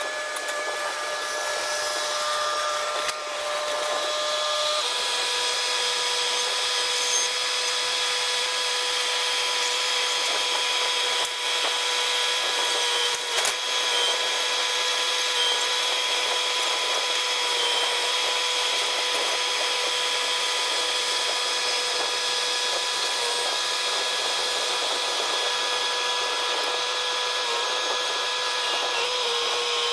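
Bobcat T66 compact track loader running hard, a steady whining engine note that steps down slightly in pitch about five seconds in, with a couple of short knocks midway as it works a large oak log onto the trailer.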